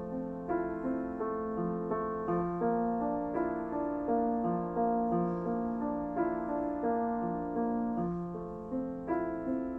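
Background music: solo piano playing a slow melody, one struck note after another.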